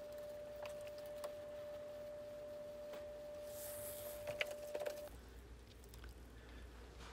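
Faint, steady single tone with a few light clicks, and a brief soft rustle as a cotton cloth wipes across the glazed ceramic bowl; the tone stops abruptly about five seconds in.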